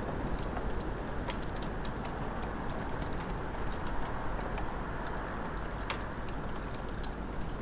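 Wood fire in a fireplace crackling: a steady hiss dotted with many small sharp pops, with a couple of louder pops, one about a second in and one about six seconds in.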